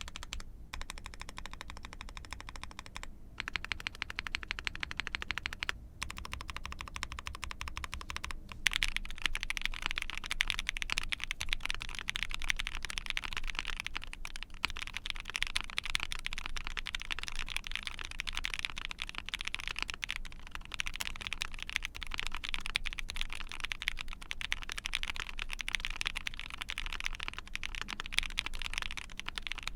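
Typing on an Ai03 Vega mechanical keyboard with a POM plate, lubed KTT HaluHalo linear switches and GMK keycaps: a fast, continuous patter of keystrokes. It has a few short pauses at first and grows denser and louder about nine seconds in.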